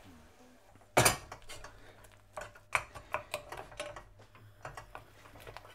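A utensil working in a steel saucepan of thickening cranberry sauce: one sharp knock against the pot about a second in, then a run of small irregular clicks and pops as the cranberries are crushed and the sauce bubbles.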